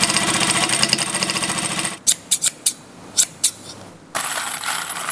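Bag-workshop machinery: a sewing machine stitching rapidly for about two seconds, then about seven sharp clicks and taps, then a machine running again with a high whine for the last second.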